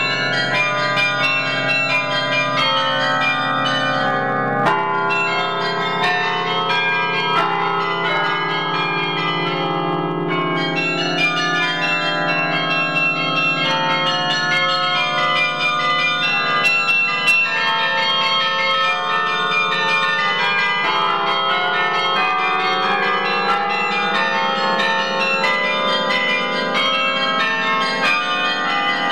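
Carillon bells playing a lively baroque piece: many struck bells ringing in quick succession and overlapping, played by hand and foot from the baton keyboard.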